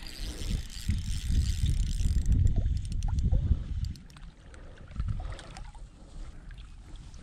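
Spinning reel being cranked to retrieve a small fish, with light clicks and rattles from the reel and rod handling over a low rumbling noise that drops away about four seconds in.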